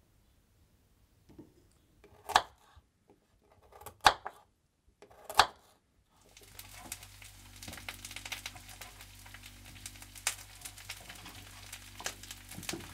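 Three sharp knocks about a second and a half apart, then kitchen sounds: a steady crackling hiss over a low hum, with scattered sharper clicks of a knife slicing carrots on a board.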